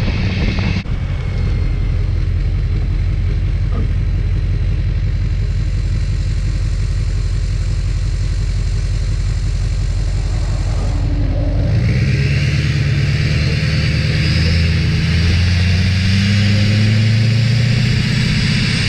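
LLY Duramax 6.6 L turbo-diesel V8 heard at the tailpipe, running steadily at idle, then pulling away about twelve seconds in, its exhaust note rising in pitch as it accelerates.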